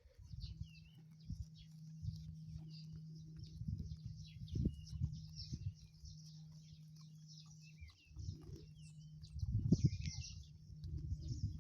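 Many small birds chirping and twittering at once, over a steady low hum and irregular low thumps and rustles from sheep grazing close by, loudest about ten seconds in.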